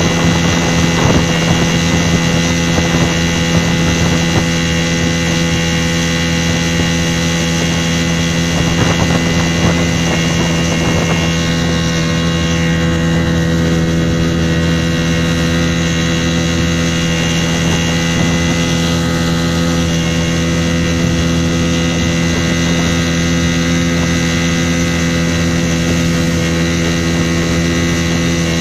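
Outboard motor running at a steady cruising speed, pushing a small boat along a river, with the water rushing along the hull. Its pitch and level hold even.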